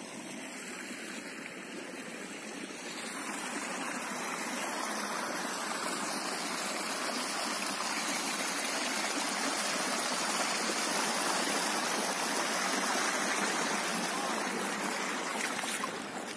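Water running in an irrigation ditch that feeds rice paddies: a steady rush of water that grows louder over the first few seconds and eases slightly near the end.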